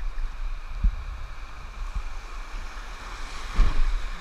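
Rushing whitewater of river rapids, heard from a kayak running through them, with wind on the microphone. Low thumps come through it, the loudest about three and a half seconds in.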